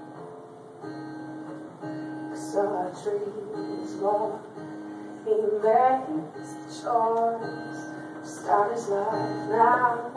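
Acoustic guitar played in strummed chords, with a woman's singing voice coming in over it about two and a half seconds in, in phrases.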